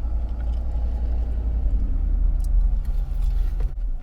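Steady low rumble of a car heard from inside the cabin, with a faint hum joining in during the second half. The sound breaks off sharply near the end and then resumes.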